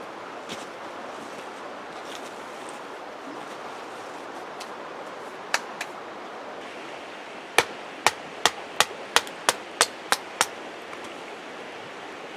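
A knife being batoned into wood with a short wooden stick: a run of eight sharp knocks, about three a second, past the middle. Under it runs the steady rush of a creek.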